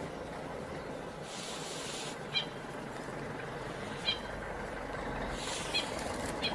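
Short, high-pitched animal cries, repeated every one to two seconds, over a steady low rumble, with two brief hissing rustles between them.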